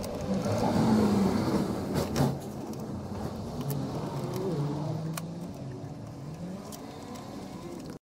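A motor or engine running steadily with slowly wavering pitch, loudest about a second in and then slowly fading, with a few sharp clicks.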